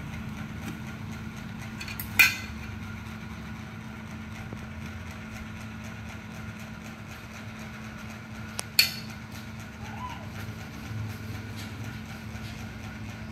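A metal spoon clinking sharply twice on a ceramic plate, about six and a half seconds apart, over a steady low background hum.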